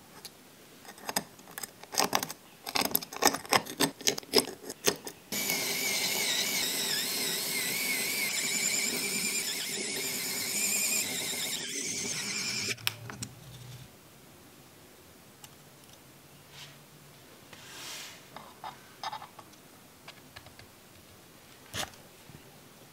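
Metal parts of a Toyan L400 mini engine clicking and knocking together as the valve cover is set on, then a small electric screwdriver whirring steadily for about seven seconds, its pitch wavering as it drives the cover screws. A few light clicks follow.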